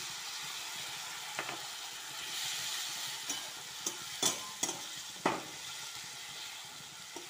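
Onions with freshly added ginger, chilli, cumin and garlic paste sizzling in hot oil in a kadai while a metal spatula stirs them, with several sharp knocks of the spatula against the pan.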